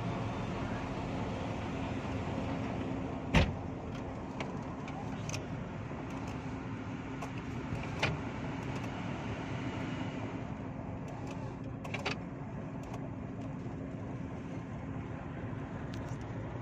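Steady low engine hum heard from inside a truck cab on a ferry's vehicle deck, with one sharp click or knock about three seconds in and lighter clicks around eight and twelve seconds.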